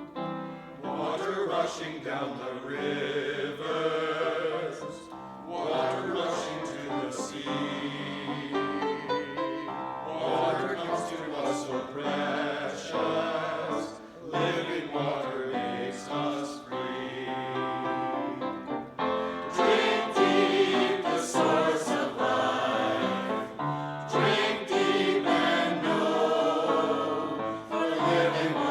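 Church choir singing an anthem, in sung phrases with short breaks between them. The singing grows louder about two-thirds of the way through.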